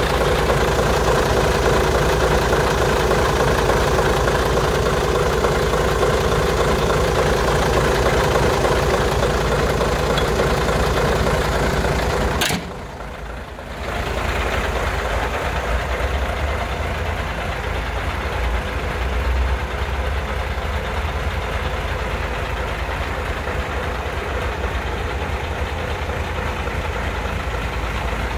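Mercedes-Benz 2628 K 6x6 truck's V8 diesel engine idling steadily. About twelve seconds in there is a click and the sound drops out for a moment, then the idle carries on somewhat quieter.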